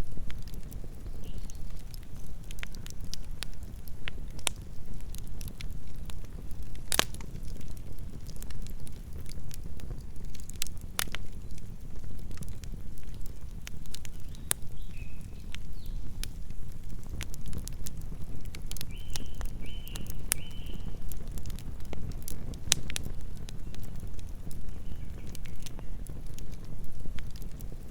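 Campfire burning: a steady low rumble of flames with scattered sharp crackles and pops from the burning wood. Three short high chirps come about two-thirds of the way through.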